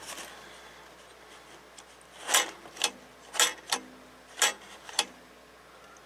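About six short clicks and scrapes of hard plastic, irregularly spaced: the cover of a Dometic RV wall thermostat being handled and worked loose.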